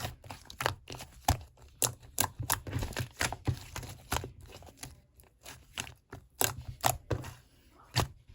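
Irregular sharp clicks and crackles, several a second, with a short lull about five seconds in.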